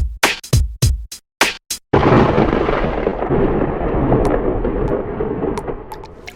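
Electronic drum-machine beat for about two seconds, then a sudden loud rumble of thunder that slowly fades away over about four seconds.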